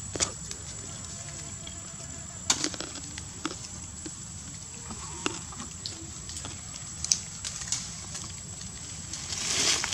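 Forest-floor ambience: scattered crackles and clicks from dry leaf litter, over a steady high-pitched whine, with a louder rustle near the end.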